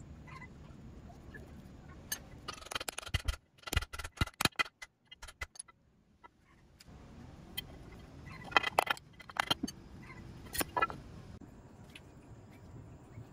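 Scattered clinks and knocks of metal Lambretta engine parts being handled and fitted, the cast aluminium bearing housing and the crankshaft, in several short clusters.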